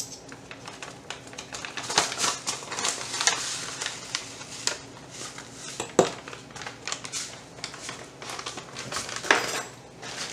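Metal measuring spoon clinking and scraping against a glass jar while chia seeds are scooped and tipped in: a run of small scattered clicks, with one sharper knock about six seconds in.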